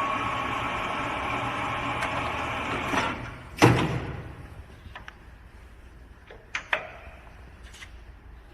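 SHARP 1440F toolroom lathe running steadily, then stopping with a loud clunk about three and a half seconds in. A few lighter clicks and knocks follow.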